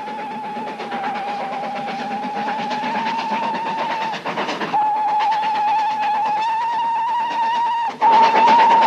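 Steam locomotive whistle of BR Standard Class 9F 92220 Evening Star sounding a long held blast, broken off briefly about four seconds in and again near the end. Under it is the rumble of the approaching train, growing louder.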